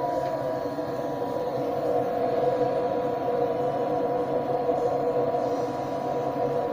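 Amateur radio receiver on the 160-metre band in CW mode, putting out steady narrow-band static with a faint steady whistle above it. The noise is interference from lighting, picked up on a low-hanging dipole.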